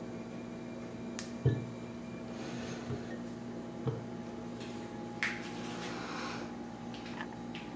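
Glass whisky decanter being handled and set down on a cloth-covered table: a few soft, dull thumps, the loudest about a second and a half in, with light rustling and clicks over a steady background hum.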